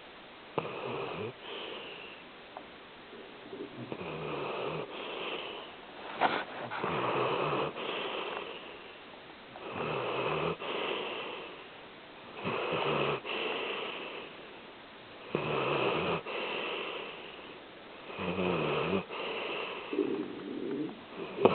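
A sleeping pet snoring, with about eight rough, rhythmic snoring breaths roughly every three seconds.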